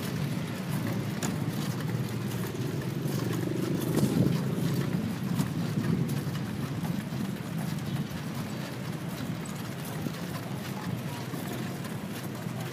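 Low rumbling noise of a moving vehicle, with scattered sharp clicks and knocks.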